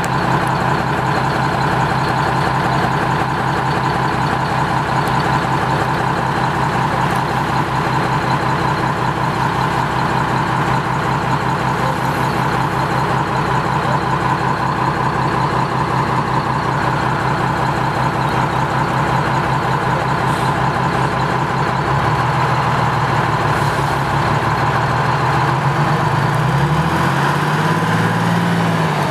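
Vintage rounded-roof transit bus's engine idling steadily with a pulsing low note and a high whine. In the last few seconds the engine speed rises and falls as it is revved.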